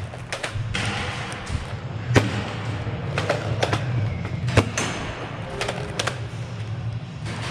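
Foam-dart blasters firing during a Nerf game: about a dozen sharp pops and clacks at irregular spacing, over a steady low hum.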